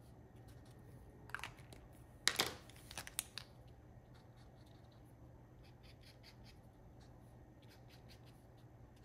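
Plastic paint-marker pens and caps handled as a Posca marker is swapped for another: a few sharp clicks in the first few seconds, the loudest about two and a half seconds in. Then faint scratching and tapping of the marker's tip colouring on black card.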